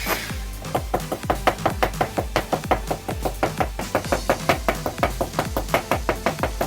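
Background music with a steady beat and fast, even percussive taps.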